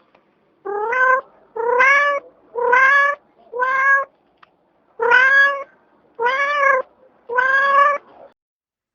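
A cat meowing repeatedly: seven insistent meows of under a second each, about one a second, stopping shortly before the end.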